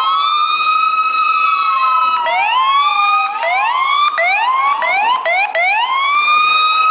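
Several police car sirens sound at once. They wail in slow rising and falling sweeps, switch to a quick repeated yelp of two or three sweeps a second for about three seconds in the middle, then rise back into the wail, with one steady tone held underneath throughout.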